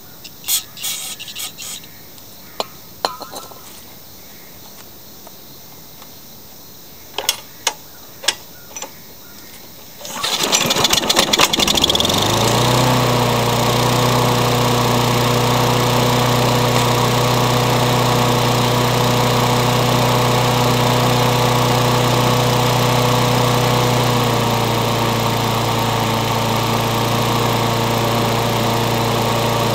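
Rebuilt Briggs & Stratton lawn mower engine: a few clicks and short sprays as the carburetor is primed with carb cleaner, then about ten seconds in it starts on the first recoil pull and runs steadily, a bit too fast. About two-thirds of the way through its speed drops slightly as the RPM is turned down.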